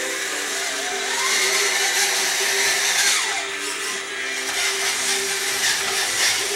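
Small electric motor and gearing whining, the pitch rising and falling as a radio-controlled model dump truck drives and manoeuvres, over a steadier lower hum.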